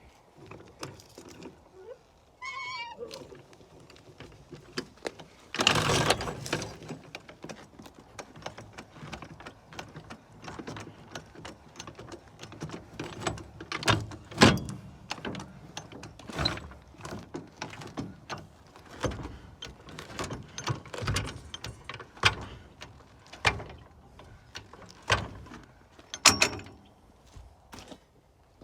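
Irregular knocks, clunks and scrapes of heavy scrap being shifted, with a short squeak about two and a half seconds in and a louder, rough scraping clatter around six seconds in.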